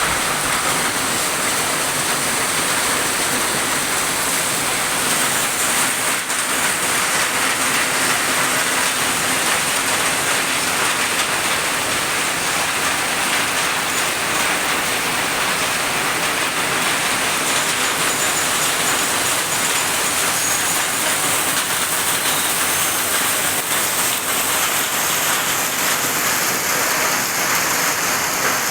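Heavy tropical rain pouring down in a steady, dense hiss with no let-up.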